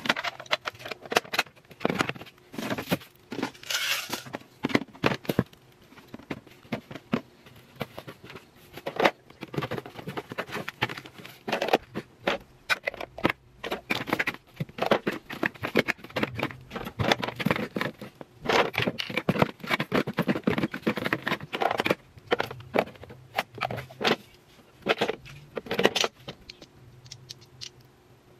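Plastic toiletry bottles, jars and small glass nail polish bottles being handled and set into a cardboard box: irregular knocks, clicks and scraping against the cardboard and against each other, quieting near the end.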